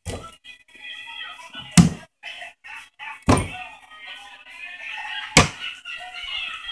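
Four loud thumps, about one and a half to two seconds apart, over background voices and music.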